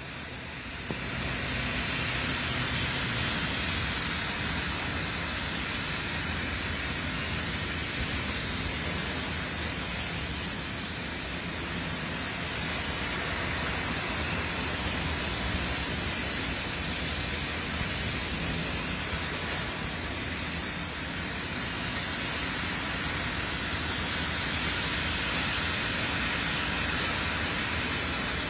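Steady machine-shop noise: a continuous hiss over a low hum from running machinery, unchanging throughout.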